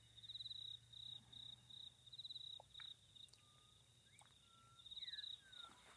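Near silence with a cricket trilling faintly: a steady high trill that swells into louder pulsed chirps every second or so. A few faint short whistled notes, some sliding in pitch, come in past the middle.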